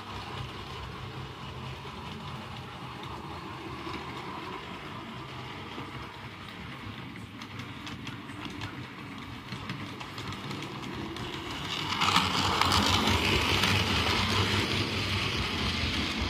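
Model railway train running on the layout: a steady low hum with wheel rumble on the track, growing louder about twelve seconds in.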